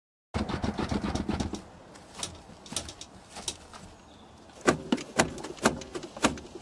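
Handling noise, then sharp clicks and clunks as a car seat is pushed and an inertia-reel seat belt is jerked to check that it locks firmly. The loudest clicks come in a run about half a second apart in the second half.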